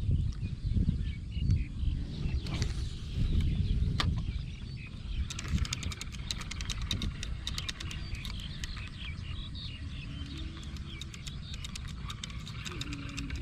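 Outdoor rural ambience: scattered small chirps and runs of rapid clicking over a steady low rumble.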